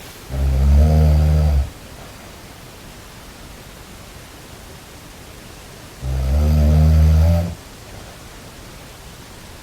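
Snoring: two long, low snores about five and a half seconds apart, each lasting about a second and a half, with a faint hiss in between.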